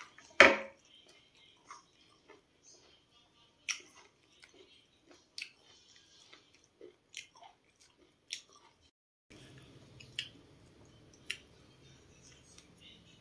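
Boiled sweet corn cob snapped apart by hand with one sharp crack about half a second in, the loudest sound, followed by scattered soft clicks and crunches of kernels being picked off and chewed. A faint steady background noise sets in after about nine seconds.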